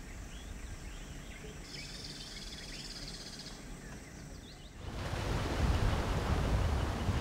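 Dusk ambience of scattered bird chirps and a high insect trill. About five seconds in it gives way to the louder, steady rush of sea waves.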